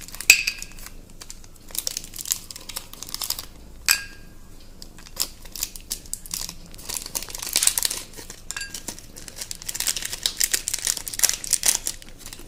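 Dairy Milk chocolate bar wrappers crinkling and tearing in irregular bursts as the bars are unwrapped, with a few sharp clicks that ring briefly as chocolate pieces drop into an enamel bowl.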